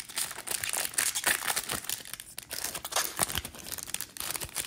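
The wrapper of a trading-card pack crinkling and tearing as it is ripped open by hand, a dense run of sharp crackles.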